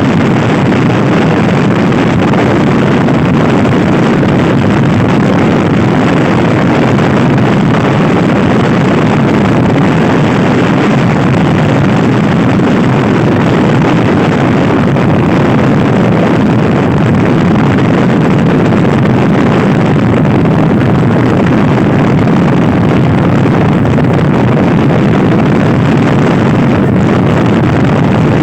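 Loud, steady wind rush buffeting the microphone of a Honda Scoopy-i scooter ridden fast, with the scooter's engine running underneath it.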